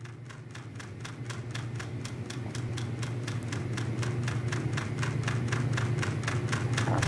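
Fast, even ticking, about five clicks a second, over a steady low hum, fading in and growing steadily louder.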